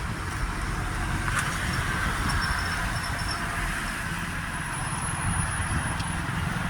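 Steady low rumble of road traffic: vehicle engines and tyre noise, with a faint tick about a second and a half in.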